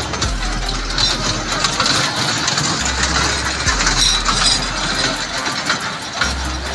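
Small fairground kiddie train running around its circular track, with a steady mechanical drone and many clicks and rattles from the cars and wheels on the rails.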